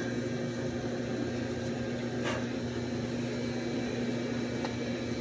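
Steady mechanical hum of running HVAC machinery, an even drone with a low electric tone under it. A brief faint noise about two seconds in.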